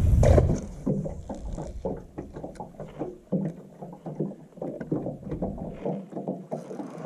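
Small waves lapping and slapping irregularly against a boat hull, with a burst of wind rumble on the microphone at the start.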